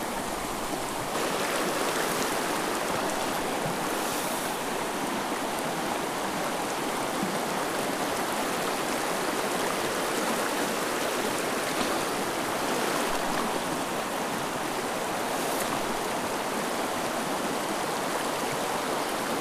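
Steady rush of a shallow mountain stream running fast over rocks. It grows a little louder about a second in.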